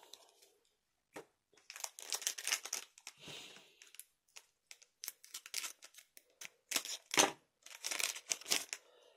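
Foil trading-card booster pack being crinkled and cut open with small scissors: several short bursts of rustling, snipping and light clicks.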